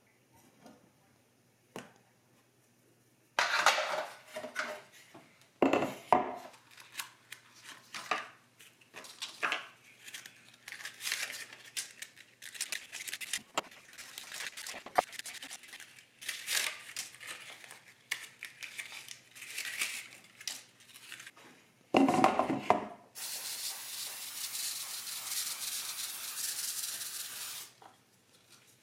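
Kitchen handling noises: irregular scrapes, rubs and light knocks of utensils and containers, then a steady hiss for about four seconds near the end.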